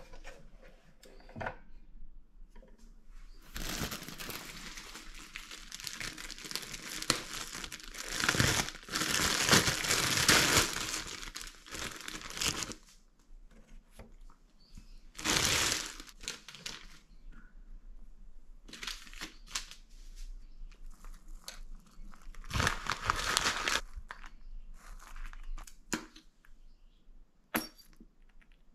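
Plastic food packaging crinkling and rustling in several bouts as bread and sandwich fillings are unwrapped. The longest bout lasts about eight seconds and is loudest near its end, and shorter bursts follow later, with light clicks and knocks in between.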